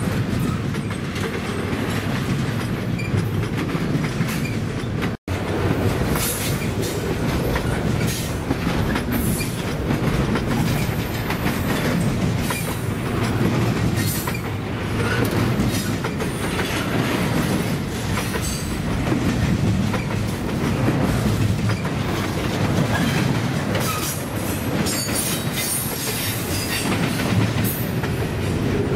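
A freight train's cars rolling steadily past, their steel wheels clattering over the rail joints, with high wheel squeals now and then. The sound cuts out for an instant about five seconds in.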